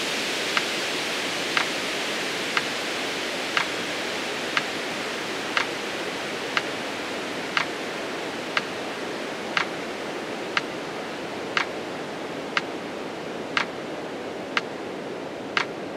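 Metronome ticking once a second, some ticks louder than others, over a steady hiss that slowly fades.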